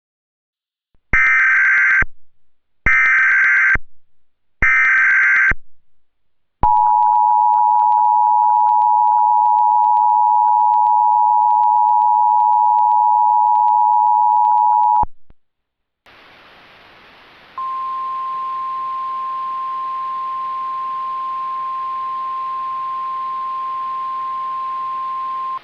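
Emergency Alert System tones: three one-second bursts of shrill digital header data, then the two-tone attention signal held about eight seconds. After it, a hiss of radio static begins, and a few seconds later a single steady alert tone sounds over it.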